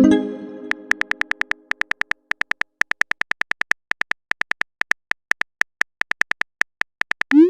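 Phone messaging sound effects: a rapid run of short, high tick-like keyboard typing sounds, about nine a second, stopping and starting in runs. It opens with a chime that dies away over about two seconds, and a short rising swoosh, the message-sent sound, comes near the end.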